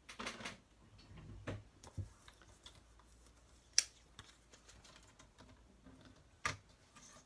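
Cardstock and a holding magnet being handled in a stamping platform: a short paper rustle, a few light taps, and two sharp clicks, the first a little under 4 seconds in and the second near the end.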